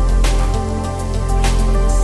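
Background music with sustained tones over a low bass, and a couple of sharp hits.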